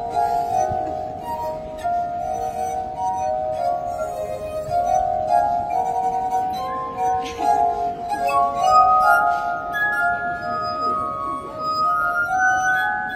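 Glass harp: water-tuned wine glasses sung by fingertips rubbed around their rims, playing a melody of long, overlapping ringing notes that climbs to higher notes near the end.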